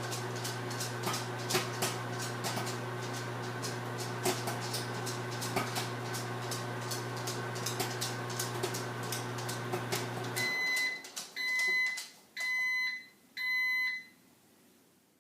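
Microwave oven running with popcorn popping inside the bag, a steady hum with scattered sharp pops. About two-thirds of the way through the hum stops suddenly as the timer runs out, and the microwave gives a series of high beeps.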